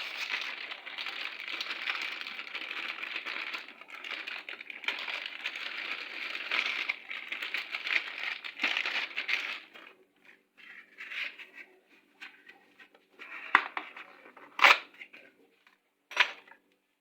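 Crinkling, rustling handling noise for about the first ten seconds, then quieter fiddling with a few sharp knocks near the end.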